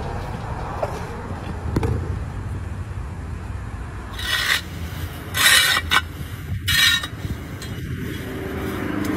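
A long-handled tool scraping soil and debris at the mouth of a ground wasp nest: three short harsh scrapes about a second apart, the middle one the loudest.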